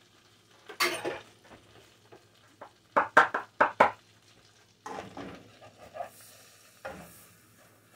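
A wooden spoon stirring flour into melted butter in a pot to make a roux, with scrapes and knocks against the pot, including a quick run of four or five knocks about three seconds in.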